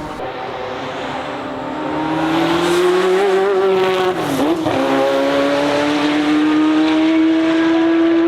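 Ferrari F40 LM's twin-turbo V8 accelerating hard, the revs climbing, then a quick dip about four and a half seconds in as it shifts up, and rising again through the next gear. The sound cuts off suddenly at the end.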